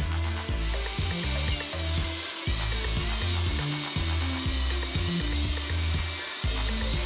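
Background music with a steady, stepping bassline, over a continuous rasping tool noise of metal being ground or sanded.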